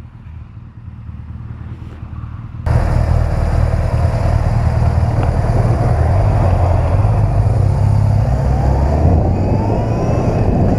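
Motorcycle engine running low and steady, then, after an abrupt cut about two and a half seconds in, much louder riding sound: engine rumble under wind buffeting, with the engine pitch rising near the end as a bike accelerates.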